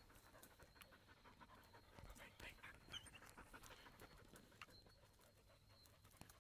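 Beagle panting and sniffing faintly at an armadillo burrow, with small rustles and clicks of twigs and earth and a brief high squeak about halfway through.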